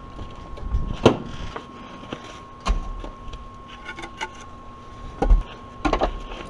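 Boards of scrap lumber tossed onto a woodpile, landing with several sharp wooden knocks and clatters a second or two apart.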